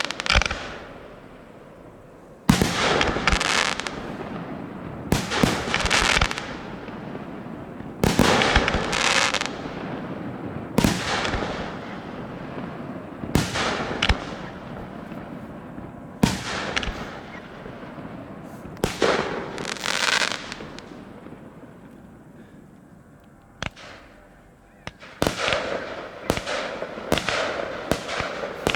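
Fireworks display: aerial shells bursting with sharp bangs every few seconds, each followed by a crackling tail. A short lull comes about two-thirds of the way through, then a quick run of bursts near the end.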